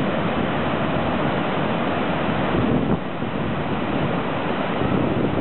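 Surf breaking on a beach: a steady, continuous rush of waves, with wind buffeting the microphone.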